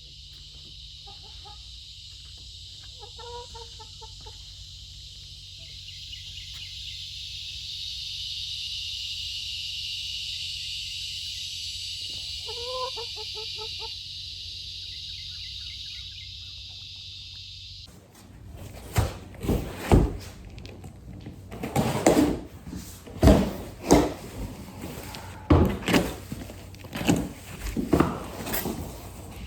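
Domestic hens clucking softly a few times, short low calls, over a steady high-pitched drone. About two-thirds through the sound changes abruptly to a run of loud knocks and thumps.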